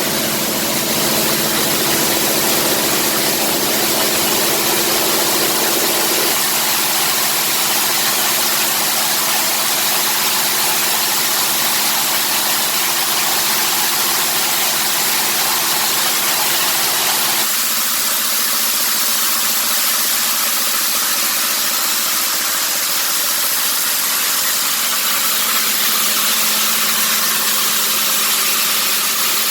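Small coffee huller machine running steadily while hulling dried parchment coffee: a continuous motor hum under a loud rushing hiss. The tone shifts slightly about six seconds in and again near eighteen seconds.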